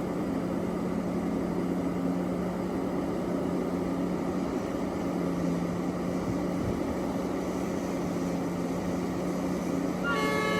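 Large Liebherr mining excavator's diesel engine running with a steady, even hum. Near the end a steady multi-tone horn or warning signal starts sounding over it.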